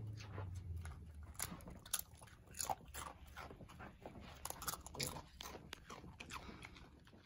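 A dog crunching and chewing potato chips: an irregular run of sharp, crisp crunches that thin out near the end.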